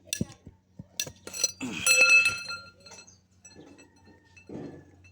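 Metal tools and parts knocking and clinking, the loudest strike about two seconds in ringing on for a moment, over a steady low hum.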